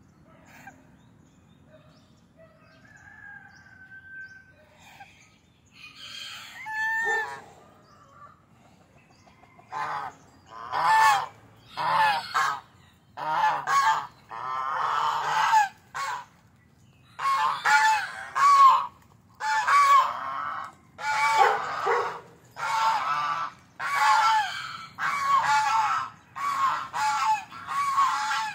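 Domestic geese honking: a few faint calls at first, then, about ten seconds in, a run of loud repeated honks, one or two a second.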